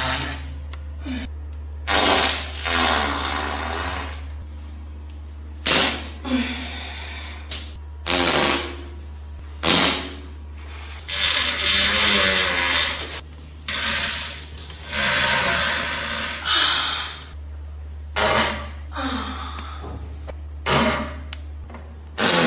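A run of farts: about ten short, loud blasts, each a second or less, some with a buzzing pitch and some airy, over a steady low hum.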